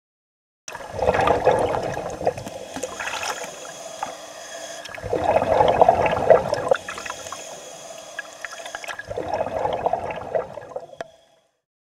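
Scuba diver breathing underwater through a regulator: three loud bubbling exhalations about four seconds apart, with a quieter hiss between them.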